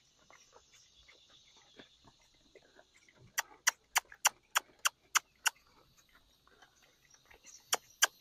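Tongue clicks (clucking) made to drive a horse forward, in two quick runs of sharp, even clicks about three to four a second.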